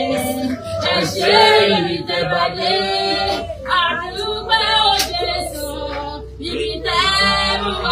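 Several women singing together in worship, with their voices loud and overlapping.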